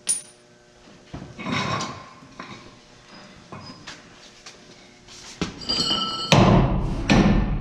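Shop work on a truck's dual rear wheel: scattered metal clanks, knocks and thuds as the wheel is handled and pulled off. About five and a half seconds in, a louder, steady rushing noise with a thin high whine starts and runs on to the end.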